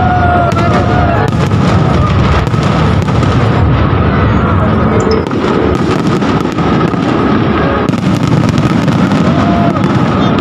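Aerial fireworks shells bursting overhead in a loud, continuous barrage of bangs and crackles.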